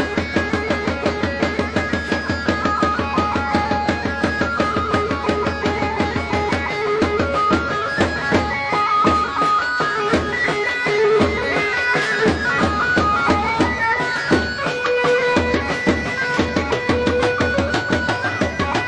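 Turkish folk dance music for the çalkama dance: a fast, steady drum beat under a melody line.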